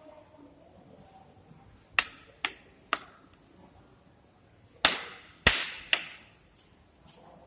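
Six sharp knocks in two quick groups of three, each about half a second apart, with a short ring after each.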